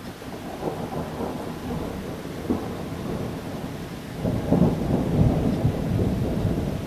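Rolling thunder rumbling, swelling soon after the start and loudest a little past the middle, then easing only slightly.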